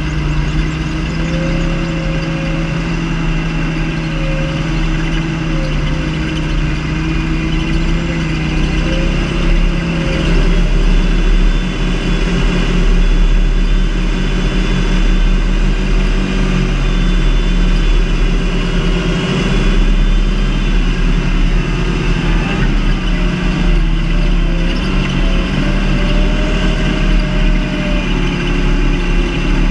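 John Deere 8430 tractor's six-cylinder diesel engine running steadily under load while pulling a cultivator. Its deep rumble grows louder about ten seconds in.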